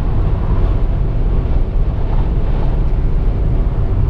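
Steady low rumble of a car's tyres and engine heard from inside the cabin while driving, with wind noise mixed in.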